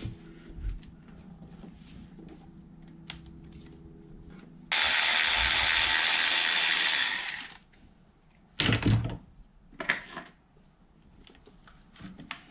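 A loud, steady hiss starts about five seconds in, lasts about three seconds and then cuts off. A few knocks follow, over a faint background hum.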